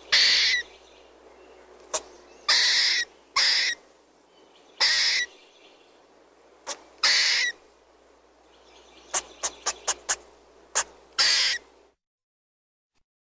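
Squirrel chirping: a series of short, high-pitched calls, mostly single with a quick run of rapid chips about nine seconds in. The calls stop abruptly about twelve seconds in.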